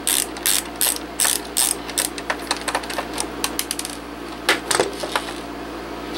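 Ratchet of a Husky screwdriver clicking in quick strokes as a small screw is backed out of a plastic keyboard case. The clicks thin out after about two and a half seconds, and a couple of knocks come near the end as the screwdriver is set down on the case.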